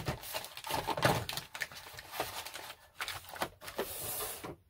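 Hands handling small cosmetic product containers and cardboard box packaging: irregular clicks and taps, with a burst of rustling about four seconds in.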